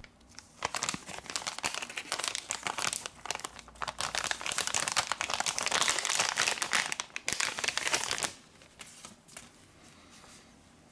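Dense crinkling and crackling of thin material being handled, such as film or adhesive, starting about half a second in and stopping after about eight seconds.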